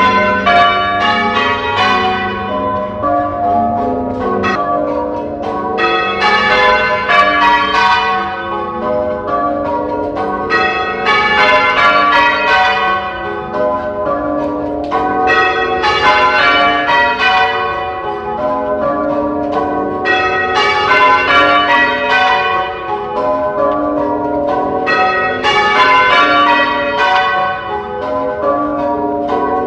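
A ring of church tower bells being rung by hand in English change ringing, one bell striking after another in a continuous sequence, the overlapping notes ringing on into each other.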